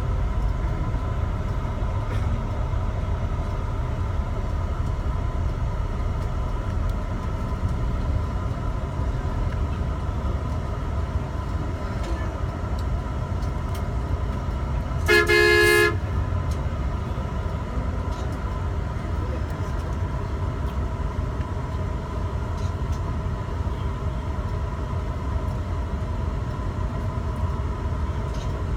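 Steady low rumble of a vehicle travelling on the road. About halfway through, a vehicle horn sounds once in a short blast of under a second, the loudest sound here.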